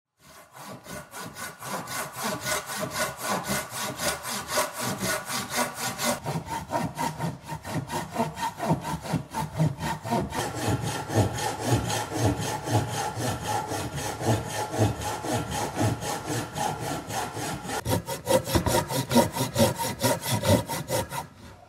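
Handsaw cutting through a wooden beam by hand, with rapid, even back-and-forth strokes of the blade rasping in the wood.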